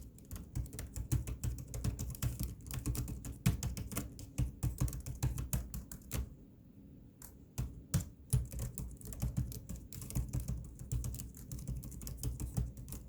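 A rapid, irregular run of small sharp clicks and taps, with a short lull about six seconds in.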